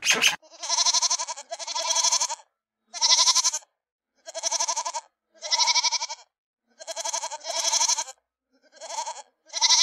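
Goat bleating repeatedly: about nine quavering bleats, each under a second long, with short pauses between them.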